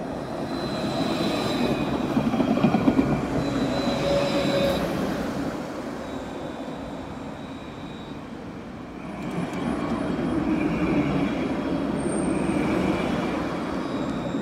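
Alstom Citadis trams passing close, one after the other. The rumble of wheels on rail swells and fades twice, the first passing about three seconds in and the second from about ten seconds in, each with a steady high whine over it.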